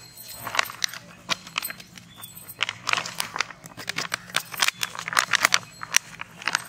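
Plastic packet crinkling and crackling as cocoa powder is shaken out of it into a large aluminium bowl, an irregular run of sharp crackles.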